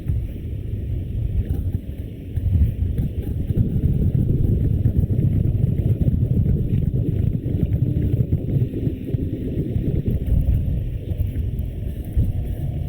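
Wind buffeting the microphone of a GoPro Hero 5 on a moving bicycle: a steady, fluctuating low rumble with no distinct events.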